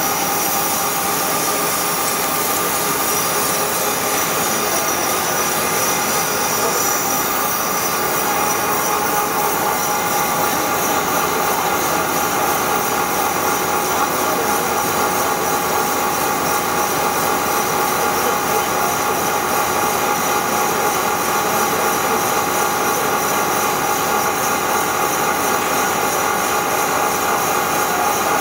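Heavy CNC roll lathe turning a steel mill roll with the tool cutting continuously: a steady machine drone with several held whining tones.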